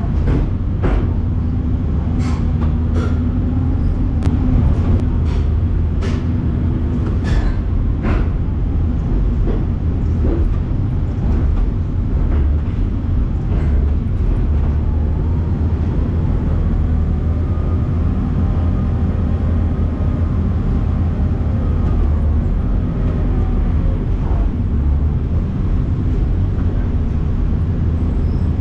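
Heavy machinery running with a steady low rumble. Sharp knocks come repeatedly over the first several seconds.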